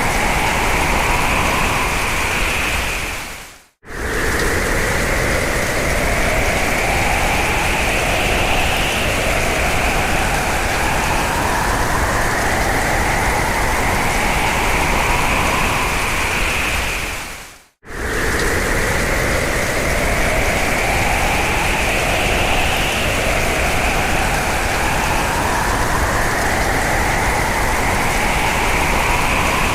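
Hurricane-force wind howling, a dense rushing noise with whistling tones that slowly rise in pitch as the gusts build. It fades out briefly about 4 s in and again about 18 s in, then starts again, repeating the same gust.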